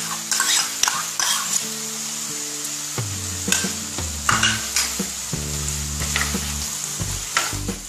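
Chicken pieces and mashed boiled potato sizzling in oil in a nonstick frying pan as the samosa filling is sautéed, with a metal spoon scraping potato out of a plastic bowl and stirring against the pan in sharp clicks and scrapes.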